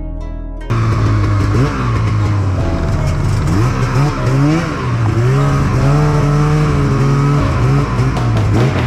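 Snowmobile engine revving, its pitch climbing and dropping again and again as the throttle is worked; it cuts in suddenly under a second in, after soft plucked-string music.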